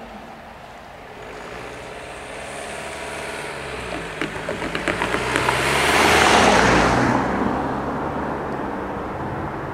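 A BMW saloon drives over a level crossing and past close by: its tyres knock several times over the rails about four seconds in, then its tyre and engine noise swells to a peak a couple of seconds later and fades.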